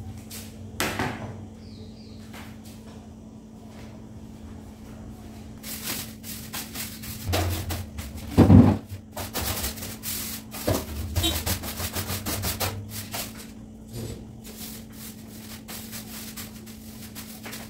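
A broom sweeping a tiled floor in quick, scratchy strokes, with a knock about a second in and several thumps, the loudest about halfway through. A steady low hum runs underneath.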